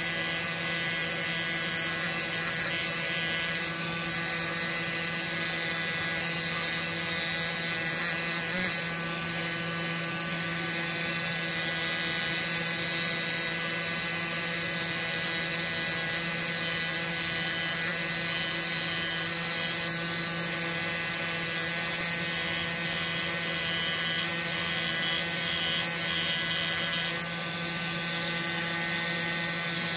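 Pneumatic air pen (air scribe) buzzing steadily as its tip chips rock away from around an ammonite, with a high hiss over it.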